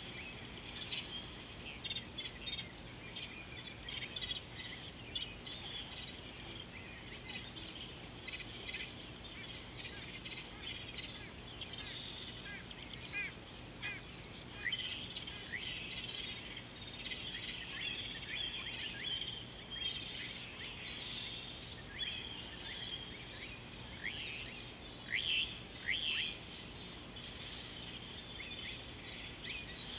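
A dense chorus of many birds calling: a continuous stream of short high chirps and quick whistled notes, with a faint steady low hum underneath.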